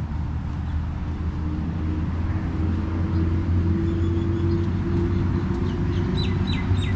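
Steady low rumble with an engine-like hum that slowly rises in pitch, as of a motor vehicle running nearby. Near the end a bird calls in a quick series of short falling chirps, about four a second.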